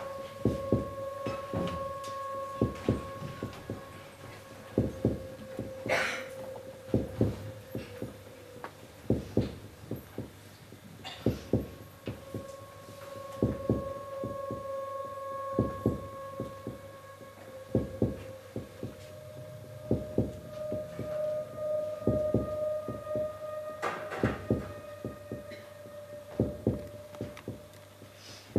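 Stage soundtrack of a sustained electronic drone with low thuds repeating in pairs like a heartbeat. The drone shifts slightly higher about two-thirds of the way through, and there are two brief sharper noises, about a fifth of the way in and near the end.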